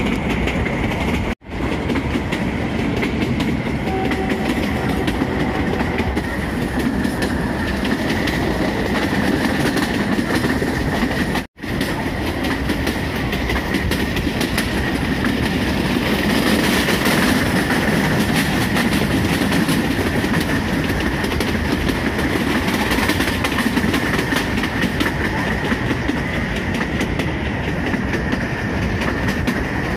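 Kangra Valley narrow-gauge toy train running, heard from on board: the steady running noise of the wheels and coaches on the track, with a faint steady high tone over it. The sound cuts out for an instant twice, about a second and a half in and again near eleven seconds.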